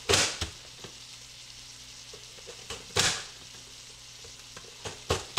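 Hand-pressed vegetable chopper slammed down through onion, each stroke a sharp plastic clack: one at the start, one about three seconds in, and two close together near the end. Under it, ground beef sizzles faintly in an oiled skillet.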